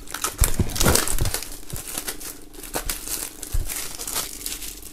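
Plastic shrink-wrap film crinkling and rustling as it is peeled off a CD jewel case, densest in the first second and a half and then sparser. There is a soft low knock about three and a half seconds in.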